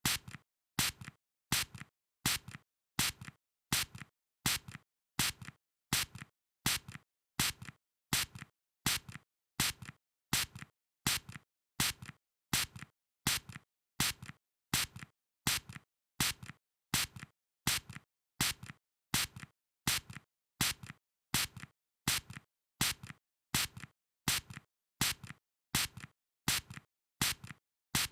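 Short hissing spray bursts in pairs, a stronger one followed by a weaker one, repeating evenly about once a second with silence between.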